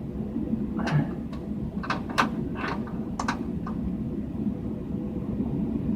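A few short clicks and scrapes as the focus adjustment knob on a CRT monitor's flyback transformer is turned by hand, over a steady low hum. The clicks come in a cluster in the first few seconds, then only the hum remains.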